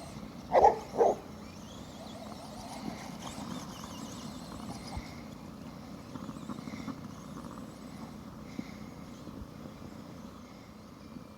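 Basset hound barking twice in quick succession about half a second in, then the faint steady running of the RC truck's motor and tyres as it is chased.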